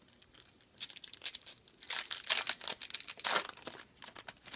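Foil wrapper of a Bowman Chrome baseball card pack being torn open and crinkled, a dense run of sharp crackles starting about a second in and dying away near the end.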